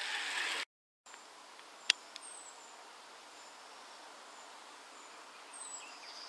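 Quiet outdoor ambience with two short, high, falling bird chirps and a faint regular high ticking. A sharp click comes about two seconds in, and the sound drops out briefly just before it.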